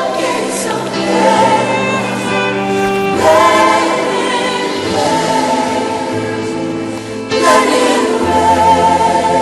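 Contemporary Christian worship music: a choir singing sustained lines over held bass notes, with louder swells about three seconds in and again about seven seconds in.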